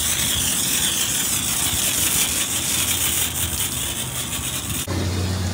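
Water spraying hard from a pressure washer wand onto an engine bay, rinsing off degreaser foam: a steady hiss that stops abruptly near the end, leaving a low steady hum.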